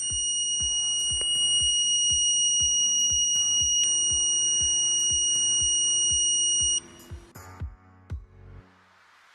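The doorbell prototype's electronic buzzer sounds one steady, high-pitched tone, which cuts off suddenly about seven seconds in. Background music with a steady beat plays underneath.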